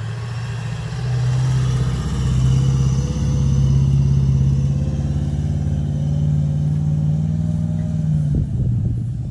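Toyota LandCruiser 200 Series V8 engine working hard under load, trying to drive out of soft sand while towing a boat trailer. The engine note rises about a second in, holds steady, then drops near the end as the four-wheel drive bogs down again.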